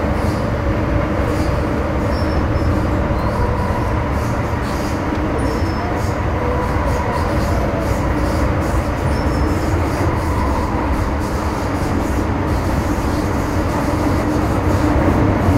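Running noise inside an MTR Metro Cammell M-Train car under way between stations: a steady rumble of wheels on rail and traction equipment, with faint steady tones from the GEC GTO chopper drive. It grows a little louder near the end.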